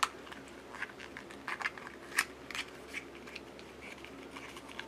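Scattered small clicks and crinkles of toy packaging and small plastic doll accessories being handled and unwrapped, with a sharp click at the start and another about two seconds in.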